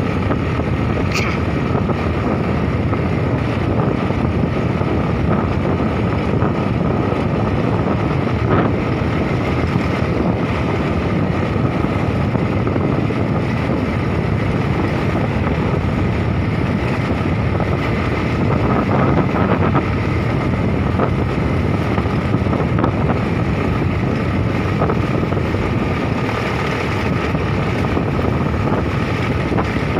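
Steady wind rush on the microphone of a moving motorbike, with the bike running underneath.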